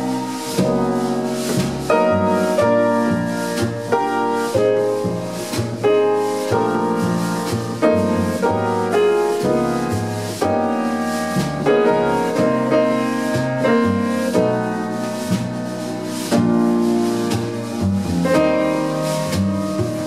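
Jazz piano trio playing a ballad: a grand piano carries the melody and chords, with double bass and drums accompanying underneath.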